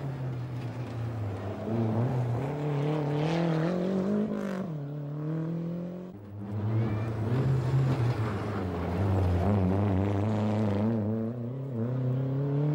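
Rally car engines revving hard on a gravel stage, the pitch climbing and falling with gear changes and lifts off the throttle. The sound breaks about six seconds in and another car's engine takes over, again rising and falling.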